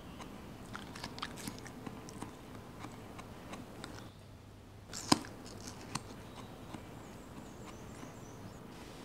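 Purple-faced langur biting and chewing watermelon: irregular small clicks and crunches, with one sharp click about five seconds in.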